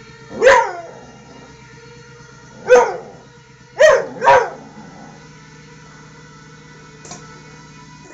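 Young Airedale terrier puppy barking four times: two single barks about two seconds apart, then two quick barks in a row. Each bark drops in pitch.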